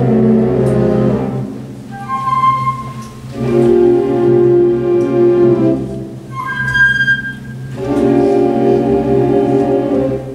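Symphonic wind band playing slow, sustained music: full chords swell up twice and fade, and in the softer stretches between them a high woodwind line carries the melody.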